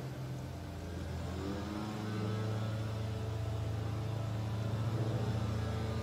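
A motor running with a steady low hum made of a few held tones, growing a little louder and fuller about two seconds in.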